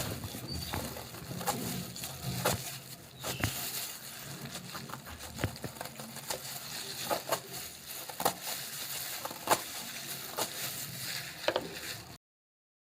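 Hand food preparation in a kitchen: irregular sharp clicks and knocks with crunching. The sound cuts off suddenly near the end.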